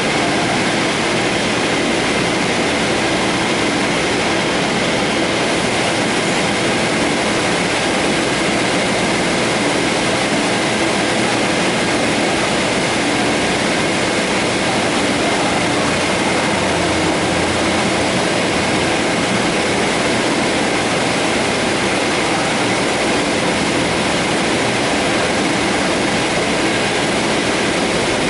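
Höfler Rapid 800 gear grinding machine grinding the teeth of a double helical gear shaft: a loud, steady, dense grinding noise with a few faint steady tones in it.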